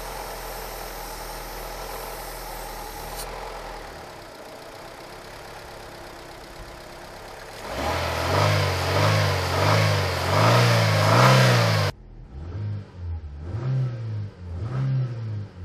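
Chevrolet E-TEC II four-cylinder petrol engine running steadily, then revved up and down over and over from about halfway through, the pitch rising and falling roughly once a second.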